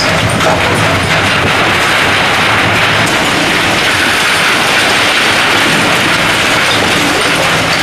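High-reach demolition excavator tearing apart a steel-and-concrete boiler structure: a loud, continuous clatter and rattle of concrete rubble and scrap steel falling and grinding, over the machine's engine and hydraulics.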